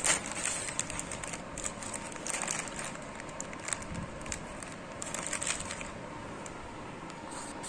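Clear plastic bag crinkling and crackling as it is handled, in scattered short rustles.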